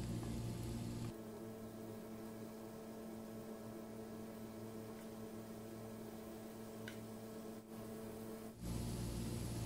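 Pakoras deep-frying in hot oil: a soft steady sizzle under a steady low hum, the sound changing abruptly about a second in and again near the end.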